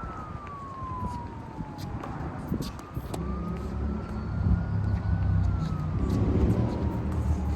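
Emergency vehicle siren in a slow wail, falling in pitch, rising again about three seconds in and falling once more near the end, over a low rumble that grows louder partway through.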